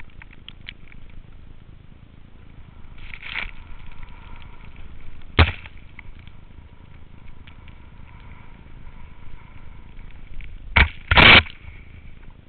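Skis sliding on snow under a steady rushing noise, with sharp knocks: one about halfway through and a louder double knock near the end.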